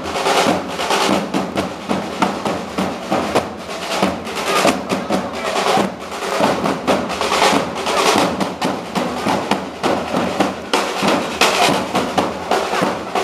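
Snare drums of a flag-throwers' drum corps playing a fast, rolling marching rhythm, with dense rapid strikes and no break.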